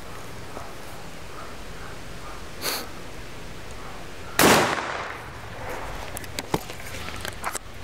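A single shot from a 12-gauge TOZ-66 side-by-side hammer shotgun, the loudest sound, about four and a half seconds in, with a brief trailing echo. A softer noise comes about a second and a half before it, and a few light clicks follow.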